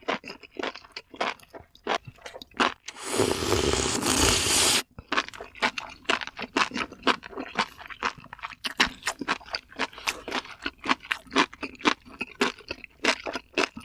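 Close-up crunching as crispy fried chicken is bitten and chewed: a rapid run of sharp, crackly crunches, with a dense burst of crackling noise lasting nearly two seconds about three seconds in.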